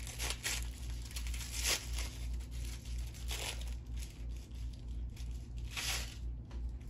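Wrapping being torn and crinkled off a sage bundle in several short, separate bursts of rustling, over a steady low hum.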